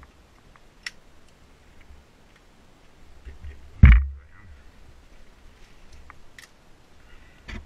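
Someone moving through shallow water in a flooded, stone-lined mine tunnel: scattered faint clicks, then one loud knock and slosh about four seconds in.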